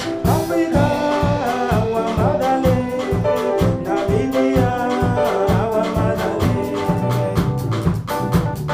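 A band playing a song: drum kit keeping a steady beat under keyboard and sung vocals.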